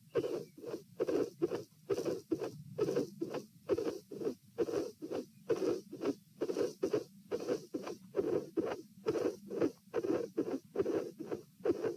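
Heart sounds picked up at the pulmonary area of the chest: a regular beat of first and second heart sounds with a mid-systolic murmur in between. The murmur goes with a dilated aortic root.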